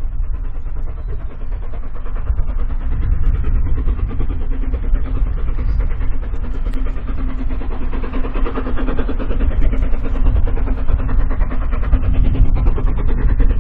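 Steam locomotive working hard as it hauls a passenger train uphill, its chimney exhaust beating rapidly and growing slightly louder as it approaches.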